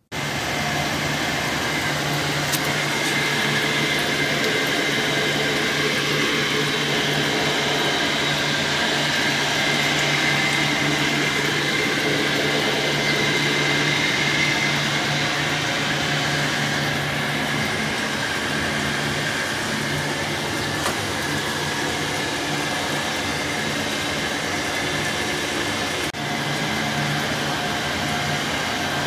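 A motor-driven machine running steadily: a continuous whir over a low hum that cuts in suddenly at the start.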